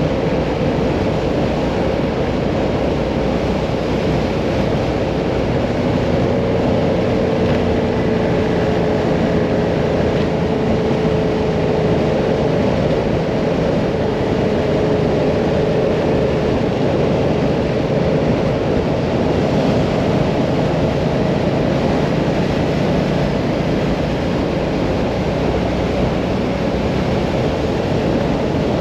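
Hyosung Mirage 650 V-twin motorcycle cruising at a steady road speed: an even engine drone under heavy wind rush, with the engine's pitch drifting only slightly.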